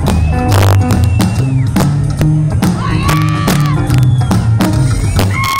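Rockabilly band playing live: slapped upright double bass walking through steady low notes, drum hits, and electric guitar with bent notes.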